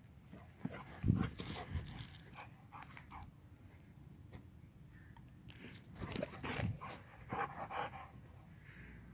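Gull terrier panting close by, among scattered knocks and rustles; the loudest is a thump about a second in.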